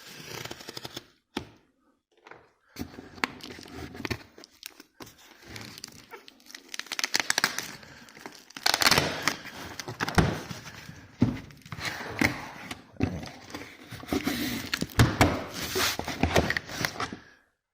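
Cardboard and plastic packaging being opened and handled: irregular rustling and crinkling in bursts, with sharp clicks and knocks.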